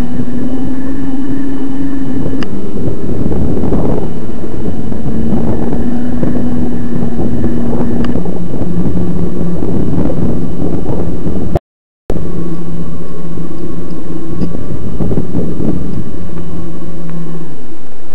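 Electric mountain bike motor whining under light power while the bike rides along, its steady hum dropping lower about eight seconds in and stopping shortly before the end, over a loud rushing noise. The sound drops out for about half a second near two-thirds through.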